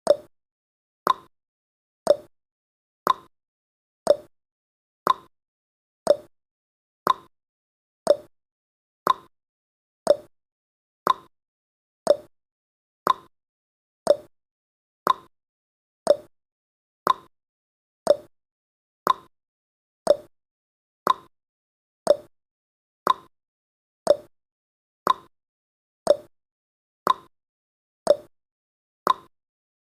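Countdown timer's clock tick-tock sound effect: one sharp click each second, alternating between a lower and a higher pitch.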